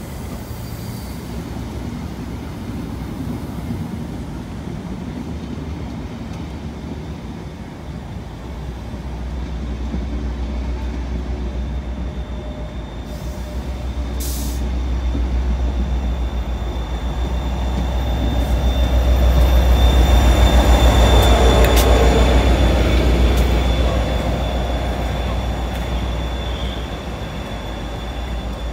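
Diesel-hauled train of passenger coaches, worked by a Class 37 and a Class 57 locomotive, rolling slowly past. A deep locomotive engine drone builds to a peak about two-thirds of the way through and then eases, with a thin high whine from the wheels or brakes over the second half.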